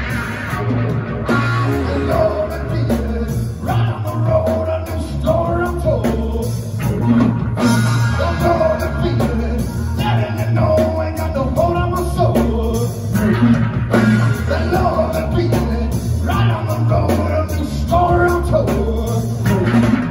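Live rock band playing: electric guitar, bass and drum kit.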